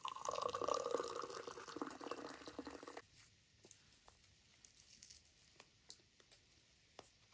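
Hot tea poured from a metal kettle into a glass cup: a steady trickle lasting about three seconds that stops abruptly. Then faint small clicks and crackles as hands break and peel something brittle.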